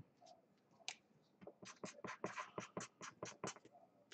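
Marker pen writing a name on a cardboard box: a run of short, faint scratching strokes, about three or four a second.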